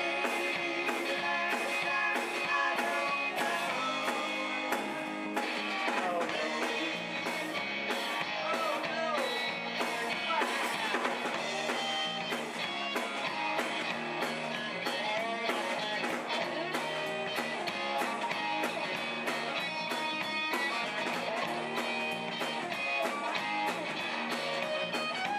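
Live rock band playing: a Stratocaster-style electric guitar over drums keeping a steady beat, with some bent guitar notes.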